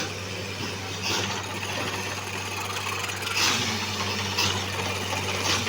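Borewell drilling rig's engine running steadily with a constant low hum, with short hissing bursts four times.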